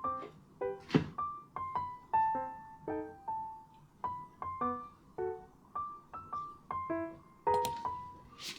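Background music: a gentle electric-piano melody of short notes that fade quickly, about two a second. A couple of sharp clicks stand out, about a second in and again near the end.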